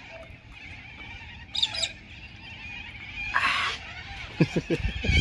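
Small birds chirping in the background, with a short breathy exhale about three and a half seconds in and a few low mouth sounds near the end.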